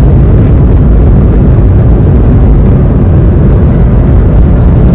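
BMW E46 with a swapped N55 turbocharged inline-six heard from inside the cabin while driving at a steady engine speed: loud, steady low-pitched engine, road and wind noise with no revving.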